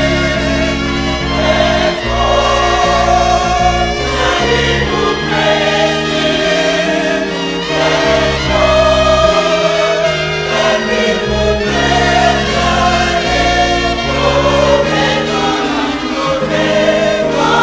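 Gospel choir singing over a band, with sustained notes and a steady bass line.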